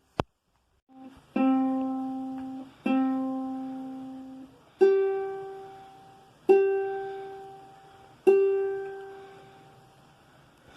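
Acoustic guitar strings plucked one at a time: five single notes about one and a half to two seconds apart, the first two lower and the last three higher, each left to ring out and fade.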